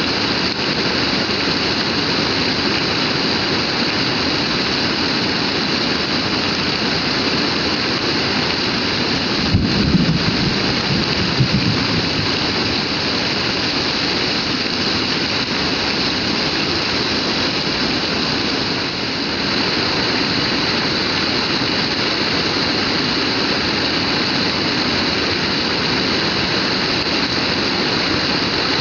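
Heavy rain pouring down steadily. A brief low rumble with a few louder thumps comes about ten seconds in.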